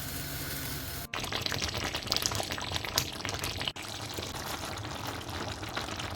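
Water pouring and splashing as soaked, shredded cabbage is drained, louder from about a second in, over a pot of stew simmering.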